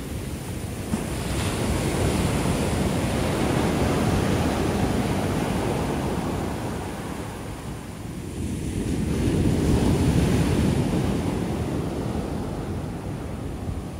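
Ocean shore break: waves breaking close to the beach and foaming up the sand, the surf swelling twice, first about four seconds in and again about ten seconds in.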